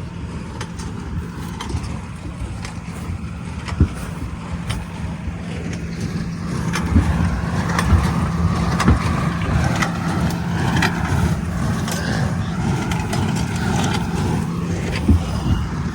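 Tractor engine running steadily under load while pulling a hay baler, with scattered knocks and rattles from the machinery.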